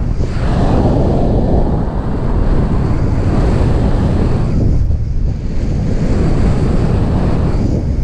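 Wind buffeting the camera's microphone in the airflow of a paraglider in flight: a loud, steady, low rumbling rush that eases briefly about five seconds in.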